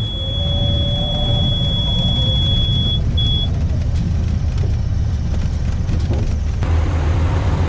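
Light aircraft's engine and propeller running at low power, heard from inside the cockpit during touchdown and rollout on a grass strip, with a steady high warning tone of the kind a stall or angle-of-attack warning gives at touchdown; the tone breaks briefly and stops about three and a half seconds in. About six and a half seconds in, the engine noise grows fuller.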